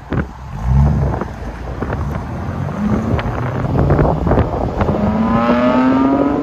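2010 Cadillac SRX's 3.0L V6 with the muffler deleted (factory converters and resonator kept), its exhaust surging as the SUV pulls away, then rising steadily in pitch as it accelerates down the road. Wind buffets the microphone.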